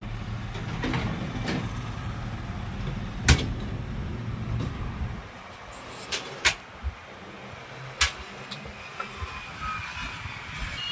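A low rumbling hum that stops about five seconds in, with a few sharp clicks and knocks scattered through it, as of things being handled.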